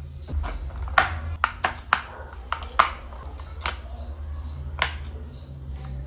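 A toy RC car's plastic battery cover being fitted over the batteries and pressed shut: a string of sharp plastic clicks and taps, loudest about a second in and near three seconds, over a low steady hum.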